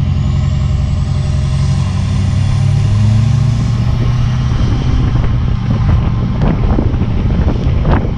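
Steady low rumble of road and wind noise from a boat towed on its trailer behind a pickup truck, heard from the boat itself. A faint whine rises through the first half, and scattered knocks and rattles come in the second half.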